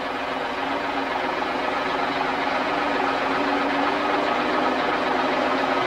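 Van engine running at low, steady revs as it drives slowly through deep floodwater, over a steady wash of water noise; the engine note rises slightly about halfway through.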